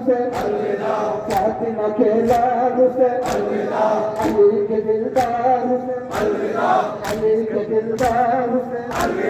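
A large crowd of men chanting a noha, a Muharram lament, in unison while slapping their chests in matam. The sharp slaps keep a steady beat of about two a second.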